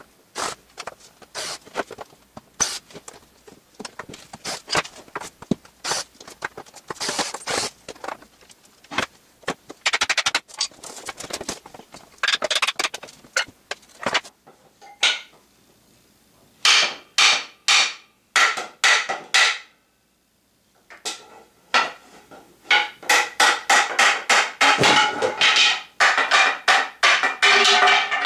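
Hammer blows knocking apart the glued joints of an old wooden kitchen chair: many sharp wooden knocks, scattered at first, then coming fast near the end at about four a second.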